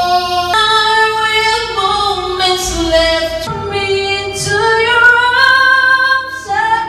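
Karaoke singing into a microphone: a high voice holding long, drawn-out notes that slide upward in pitch in the second half.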